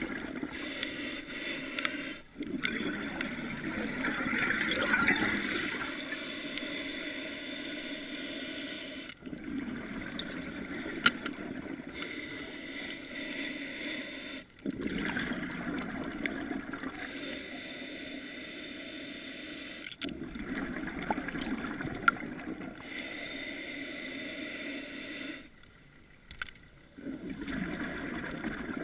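Underwater ambient noise picked up by a camera in its waterproof housing: a steady muffled rushing with some gurgling, broken off briefly several times and quieter for a moment near the end, with a couple of sharp clicks.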